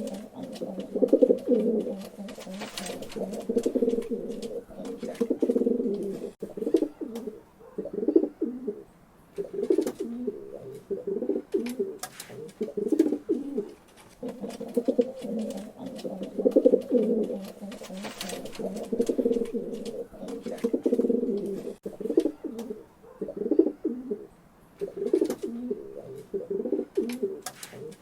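Pigeons cooing: low, throaty coo phrases follow one another with short pauses between them, and scattered sharp clicks come in among them.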